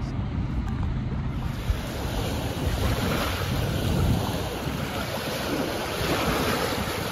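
Wind blowing across the microphone over small, choppy waves washing against the shore of a lake bay, a steady rushing noise.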